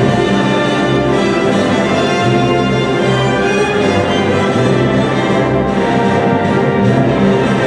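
Orchestral music playing sustained, full chords at a steady loudness.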